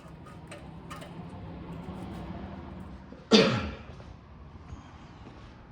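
A single short cough, sharp at the start and falling away within half a second, about three seconds in, over a steady low hum and a few faint clicks.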